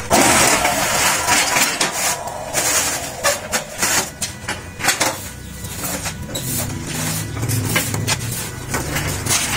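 Steel frame of a 10-cavity manual concrete-block press clanking and knocking as the mould is lifted, with an electric motor on the machine running briefly.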